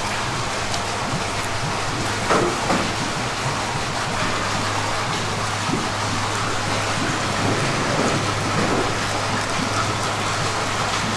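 Steady rush of running water over a low steady hum, with a couple of soft knocks about two and a half seconds in.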